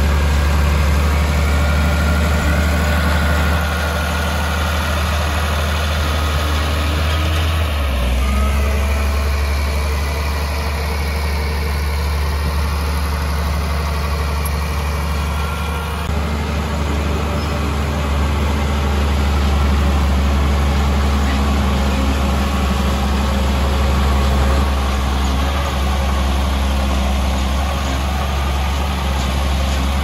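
Heavy earthmoving machine's diesel engine running steadily with a deep drone, its low note shifting about eight seconds in.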